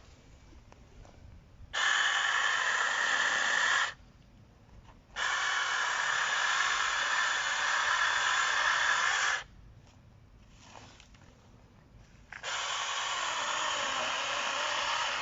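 Cordless brushless mini electric chainsaw running in three bursts as the trigger is squeezed and released: a steady whine that switches on and off sharply, the last burst a little quieter.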